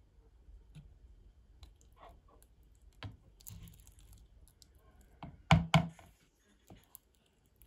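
A metal spoon stirring thick rye and wholegrain sourdough starter in a bowl, with soft clicks and scrapes against the sides and two loud knocks of the spoon on the bowl about five and a half seconds in.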